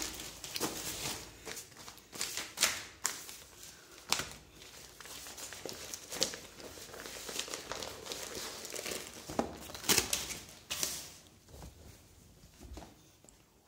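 Clear plastic polybag crinkling and rustling in irregular bursts as a T-shirt is handled in it and pulled out, with the loudest crackles about two and a half seconds in and again near ten seconds.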